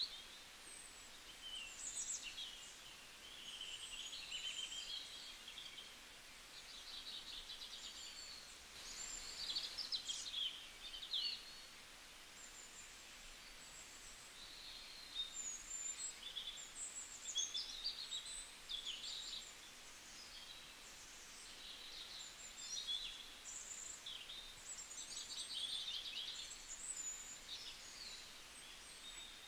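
Birdsong: several small birds chirping and twittering continuously and overlapping, with short high chirps and trills over a faint background hiss.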